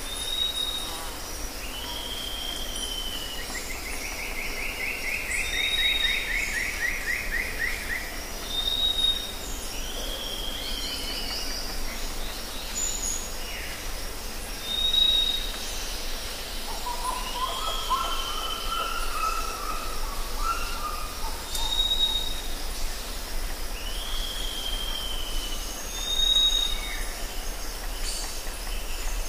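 Forest ambience of several birds calling: short high whistles repeating every few seconds, falling slurred calls, a descending trill in the first few seconds and a lower warbling phrase about two-thirds of the way through, over a steady high-pitched hiss.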